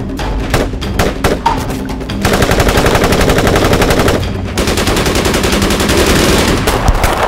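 Rifle gunfire: separate shots in quick succession for about two seconds, then a long stretch of rapid automatic fire that thins out near the end.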